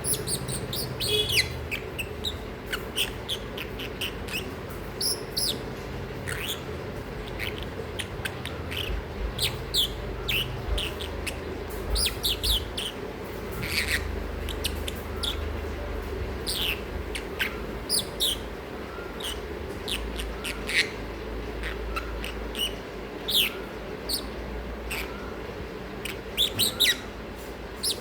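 Masked lovebird chirping: short, high, quickly falling chirps, sometimes in quick clusters, over a steady low hum.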